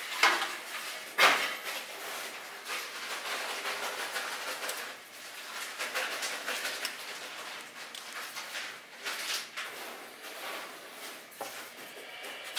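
Metal pan clanking and scraping as it is handled and turned on its stand: two sharp knocks about a second apart near the start, then lighter clatter and rubbing.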